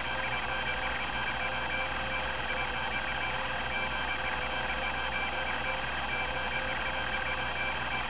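Epson-Seiko HD-860 20 MB MFM hard drive doing random seeks: its stepper motor drives the head rack and pinion back and forth in a rapid, even chatter with steady whining tones. These are the seeks of a random-access timing test.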